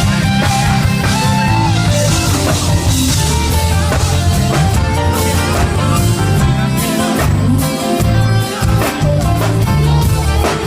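A live band playing music at full volume, with steady bass and drums under the other instruments.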